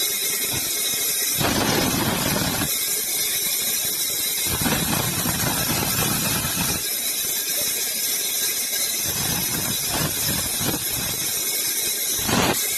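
Sawmill saw cutting through wood: a continuous high screech, with fuller, louder spells every few seconds as the blade bites.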